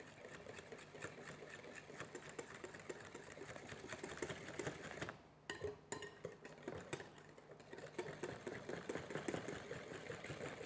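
Cake batter of eggs, stevia and fruit purée being beaten in a mixing bowl: a fast, continuous run of clicking and scraping against the bowl, with a short break about five seconds in.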